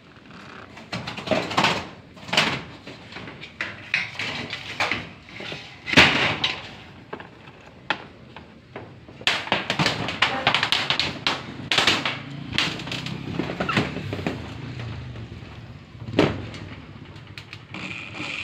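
Corrugated galvanized iron roofing sheets clanking and rattling irregularly as they are worked on, with a sharp metallic knock about six seconds in and a run of denser rattling in the second half.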